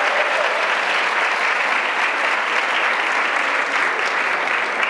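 Applause: an audience and the contestants on stage clapping steadily.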